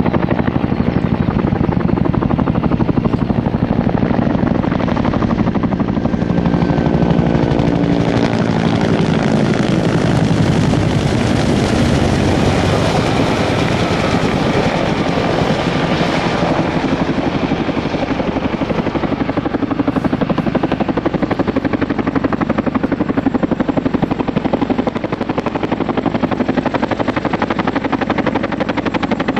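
Helicopter running and flying, its rotor chopping steadily, with the engine-and-rotor pitch sweeping and bending through the middle stretch.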